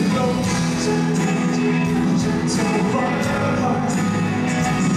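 Rock music with singing and a steady drum beat.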